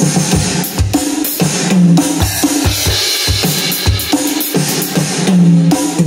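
Pearl Mimic Pro electronic drum kit with acoustic cymbals being played in a busy fusion groove: kick, snare and cymbal wash, with pitched tom strokes falling in pitch about two seconds in and again near the end.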